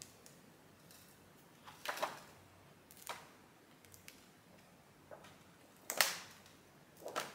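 Pages of a large hardcover photobook turned by hand: brief papery swishes and flaps of the page, about four times.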